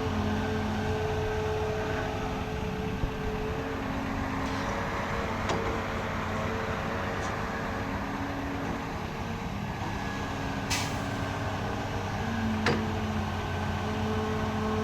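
Excavator diesel engine running steadily, its pitch shifting up and down as the hydraulics take load, with a few short sharp knocks over it.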